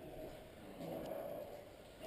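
Faint muffled rustling of a player's movement and gear, a little louder about a second in.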